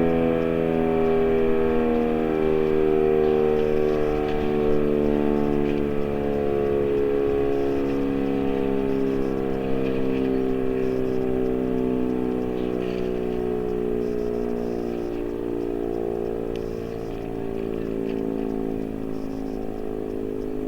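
Sentry 7V8 electromechanical outdoor warning siren winding down after its test, its steady wail sliding slowly lower in pitch and fading gradually as the rotor coasts.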